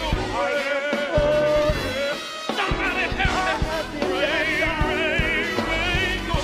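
Live band music with singers holding long, wavering notes over regular drum hits.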